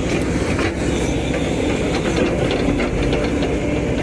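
A heavy diesel vehicle's engine running steadily, with a continuous low rumble and scattered rattling clicks.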